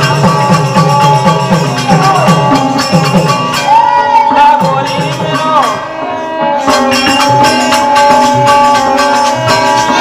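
Live Birha folk music: harmonium holding steady chords over fast hand-drum strokes and sharp metal percussion, with a melody line that bends and holds midway. The drumming thins out for a moment about six seconds in, then picks up again.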